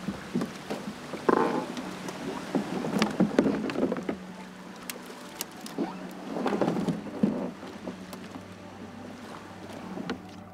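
Canoe being pushed through a tangle of dead branches: wooden paddle knocks and sticks scraping along the hull, many sharp knocks and scrapes, growing quieter in the last couple of seconds.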